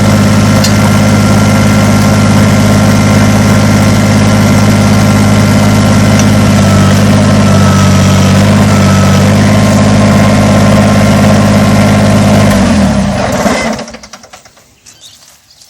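Kubota BX compact tractor's diesel engine running at a steady speed, then shut off about 13 seconds in, winding down and leaving quiet.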